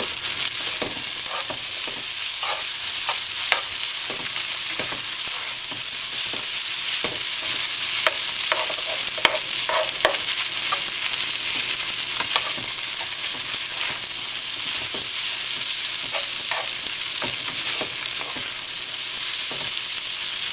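Fried rice with chicken and freshly added egg sizzling steadily in a hot pan, with scattered scrapes and taps of a spatula stirring the rice and chopping up the egg.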